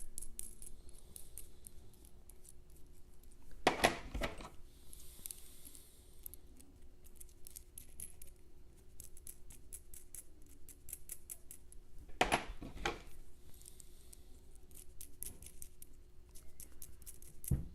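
Small metal hardware being handled: a run of light clicks and clinks as plain nuts are threaded onto the brace kit's threaded anchor pieces, with louder clunks about four seconds in, about twelve seconds in, and at the very end.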